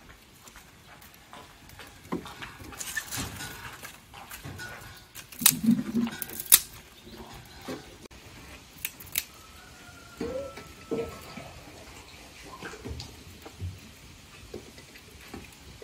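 Dry twigs snapping, cracking and knocking as they are broken and pushed into a small wood fire under a cast-iron kazan, with scattered crackles; the sharpest cracks come in a cluster a few seconds in.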